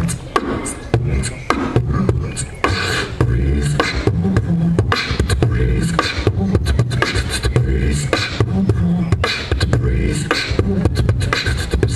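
A beatboxer performing into a handheld microphone over a PA. He keeps up a steady beat of deep bass kicks, sharp snare clicks and short hissing hi-hats, all made with the mouth.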